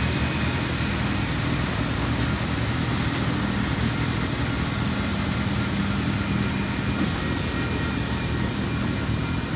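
Tasrail diesel-electric locomotives passing at a level crossing, their engines running with a steady low hum that drops away about seven seconds in as the lead units go by.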